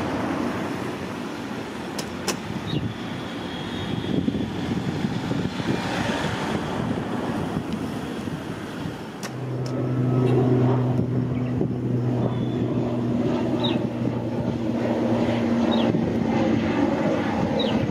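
Steady outdoor rumble of traffic and wind. About halfway through, a steady low engine drone sets in, and a few short high chirps come near the end.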